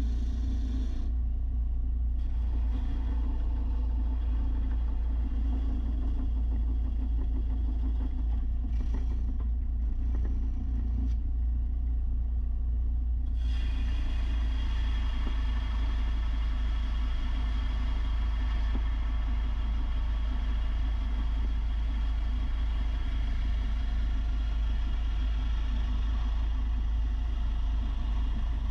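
Electric belt sander running steadily with a deep rumble. About halfway through, a brighter, higher hiss joins in and holds.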